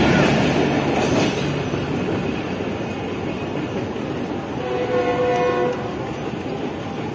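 The rumble of a Pakistan Railways passenger express fades as its coaches draw away. About five seconds in, a train horn sounds once, held steady for about a second.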